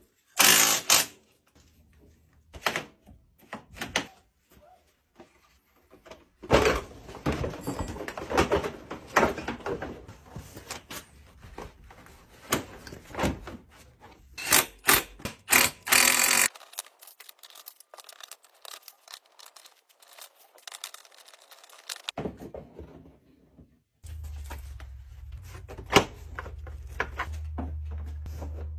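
A run of clicks, knocks and thunks from hands and tools fitting the plastic fenders and body parts back onto an ATV, in several short cut-together stretches. A steady low hum sets in near the end.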